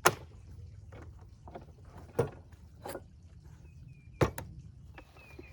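A few separate sharp knocks and clunks, the kind made by handling tools or wood, with a few faint short bird-like chirps near the end. No saw is running.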